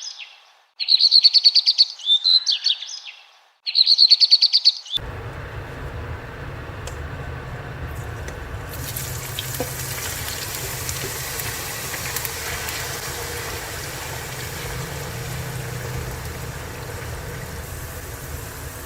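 A bird chirping and singing in three short, similar phrases. About five seconds in, it cuts off and a steady noisy hum with a low drone takes over.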